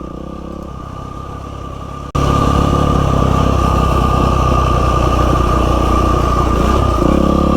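Dirt bike's single-cylinder four-stroke engine (Yamaha WR450F) running, with a steady high whine over it. It is quieter at first, then jumps suddenly louder about two seconds in, with a rushing noise on top; its note shifts slightly near the end.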